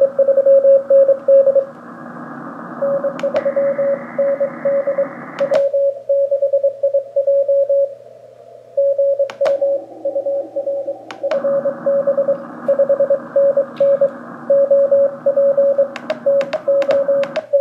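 Morse code (CW) received on the mcHF QRP SDR transceiver: a tone of about 600 Hz keyed on and off in dots and dashes over a swishing background noise, which the operator puts down to local interference. About five and a half seconds in, the noise largely drops away as a narrow CW filter is switched in, and it comes back about eleven seconds in. A few sharp clicks are heard as the settings change.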